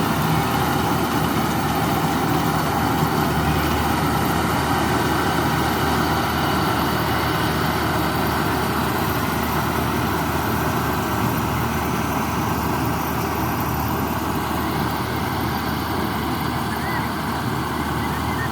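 Combine harvester running steadily while harvesting rice, its diesel engine and machinery making a continuous dense noise that eases slightly near the end.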